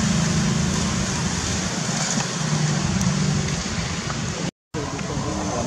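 Steady outdoor background noise with a low, even hum, broken by a brief gap of silence about four and a half seconds in.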